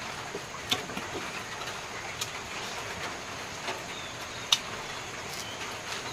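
A person eating: scattered faint clicks and smacks of mouth and food handling over a steady hiss, with one sharper click about four and a half seconds in.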